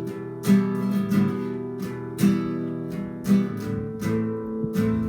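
Acoustic guitar strummed in a slow, even rhythm, a chord about once a second, each left to ring.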